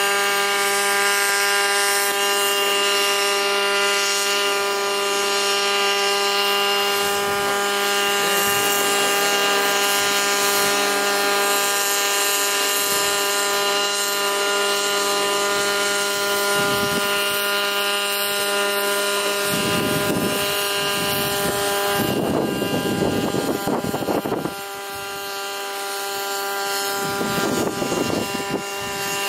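Multirotor drone propellers humming in a steady, even-pitched drone as it flies overhead, with a few low rushes of noise in the last third.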